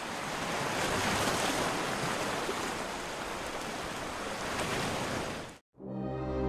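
Sea water splashing and sloshing at the surface close to the microphone as a snorkeler swims. It cuts off abruptly near the end, and music with held notes begins.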